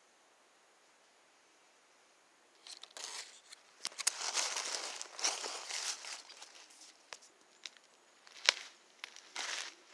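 Footsteps crunching and rustling through dry fallen leaves on a forest floor, starting about two and a half seconds in, with a few sharp snaps underfoot.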